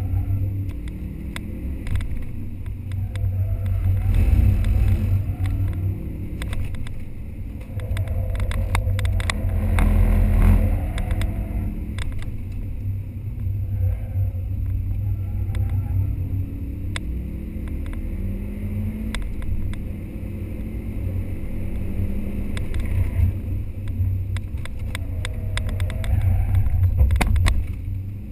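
Subaru Impreza's flat-four boxer engine heard from inside the cabin, driven hard: its pitch climbs again and again and drops back at each gear change, with surges in loudness around a third of the way in and near the end. Scattered sharp clicks and rattles sound over it.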